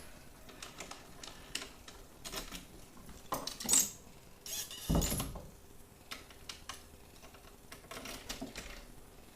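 Scattered light clicks, taps and rustles, with two louder scraping bursts about three and a half and five seconds in.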